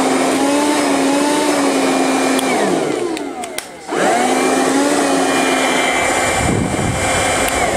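12-volt car vacuum motor working as a blower, running with a steady whine. About two and a half seconds in it winds down, falling in pitch, then starts up again a second later and spins back up to speed. Near the end a low rumble of air from the blower pipe hitting the microphone joins it.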